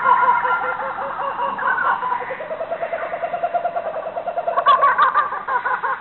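Jungle soundscape of many animal calls layered together: pitched, rapidly repeated pulsing calls over a background chorus. A louder burst of the pulsing calls comes in near the end.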